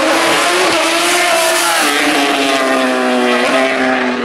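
Motorcycle engine accelerating hard past the listener. Its pitch climbs, drops back at an upshift about two seconds in, then climbs and drops again at a second gear change.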